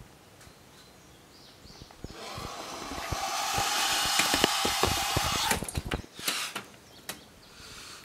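Two-week-old turkey vulture chick hissing: one long hiss of about three seconds that swells louder, then a few short hisses, over scattered light knocks.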